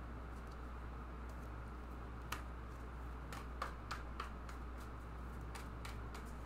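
Tarot cards shuffled by hand: a handful of sharp, light card clicks and taps, scattered between about two and six seconds in, over a steady low hum.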